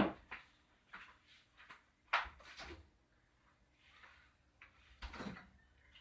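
Eating noises as someone works through a plate of extra-hot chilli instant noodles: three short, sharp mouth sounds, one right at the start, one about two seconds in and one about five seconds in.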